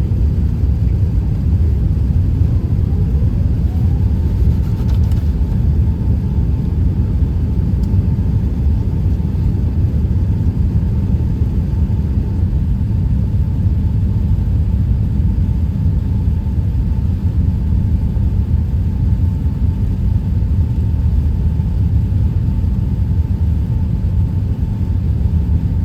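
Airbus A380-800 engines at takeoff power, heard inside the passenger cabin: a loud, steady low rumble with a thin whine that rises in pitch over the first few seconds, then holds steady.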